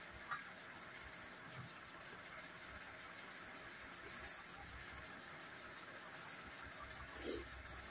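Quiet room with a steady faint hiss and small eating sounds of hands mixing rice on plates: a short click just after the start and a brief louder sound near the end.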